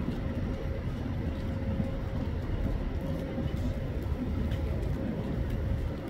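Steady rumble of city street traffic, with a faint constant hum.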